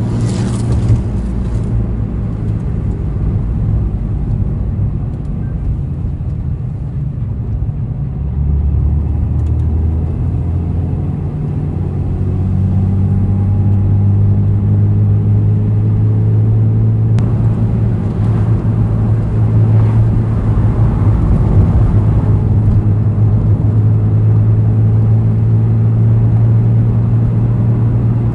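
Honda NSX's V6 engine running through an all-titanium aftermarket exhaust as the car drives, a steady low engine note. About halfway through the note climbs and grows louder as engine speed rises, then holds.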